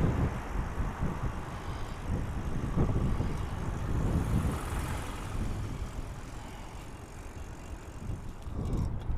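Outdoor street ambience: a low, uneven rumble of road traffic with wind gusting on the microphone.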